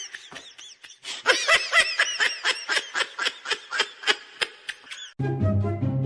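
High-pitched laughter: a rapid string of short bursts, about four or five a second. About five seconds in, it gives way to music with a deep bass line.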